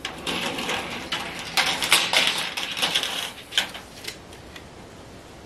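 Thin sheet-metal ridge cap clattering and scraping against the ribbed metal roof panels as it is handled into place, a busy run of rattles and sharp ticks that dies away about four seconds in.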